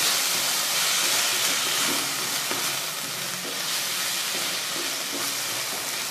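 Shredded vegetables sizzling in hot oil in a non-stick kadhai as they are stirred and tossed with a wooden spatula: a steady frying hiss, a little louder in the first two seconds.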